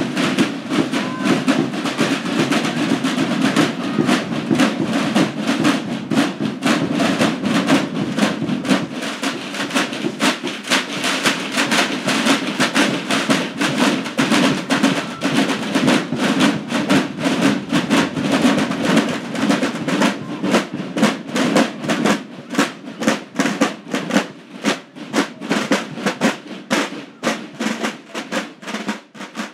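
Drums beaten in a fast, steady run of strokes, thinning out near the end.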